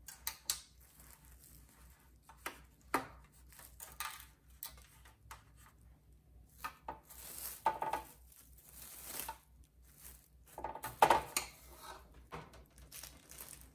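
Plastic cling film rustling and crinkling as it is handled, with scattered light knocks and scrapes of a metal baking sheet; the loudest rustle comes about eleven seconds in.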